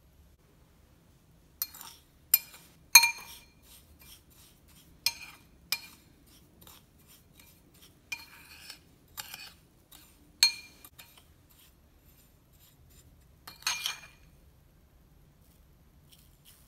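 Metal spoon clinking and scraping against a ceramic bowl while stirring a dry spice mix: a run of irregular sharp clinks, each with a short ring. The clinks start about a second and a half in and stop around fourteen seconds, the loudest about three seconds in.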